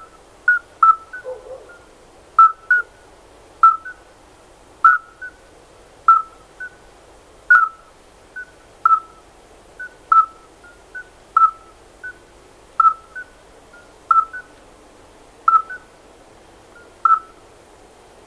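Common midwife toads calling: short, pure piping notes, the loudest male about one note a second, with fainter males slotting their notes in between on slightly different pitches. A faint steady cassette-tape hiss lies underneath.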